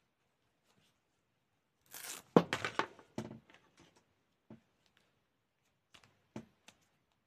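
A hook-and-loop (Velcro) fastener being ripped open on a small doll's skirt: a quick crackling tear about two seconds in, followed by a few light taps and clicks of fabric and plastic being handled.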